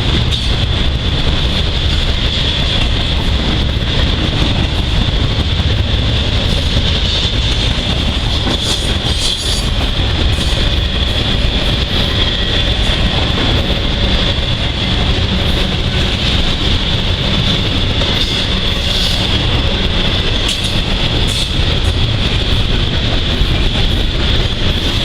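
Norfolk Southern intermodal freight train's cars rolling steadily past at close range: a continuous low rumble with scattered wheel clicks over the rails and a steady high-pitched whine above it.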